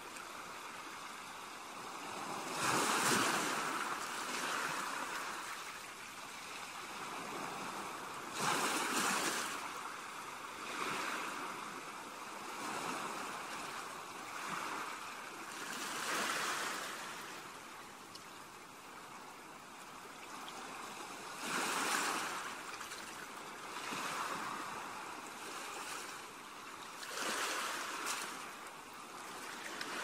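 Sea waves washing onto a rocky shore. The hiss of water swells into a louder surge about every six seconds, five times in all.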